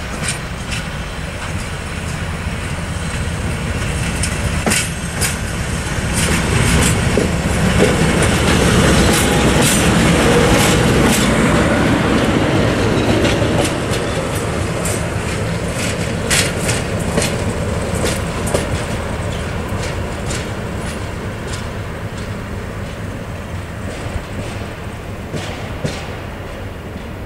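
SM42 diesel shunting locomotive passing on the track: its engine rumble grows louder as it approaches, is loudest as it goes by about halfway through, and then fades as it draws away. Sharp clicks from the wheels over the rail joints run through it.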